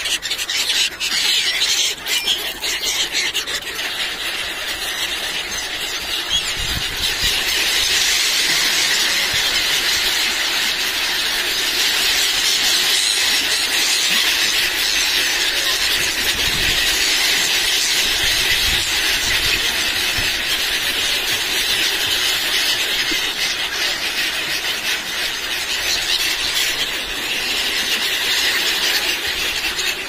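A large flock of gulls calling all at once: a dense, continuous chorus of high screaming cries, which gets louder about seven seconds in.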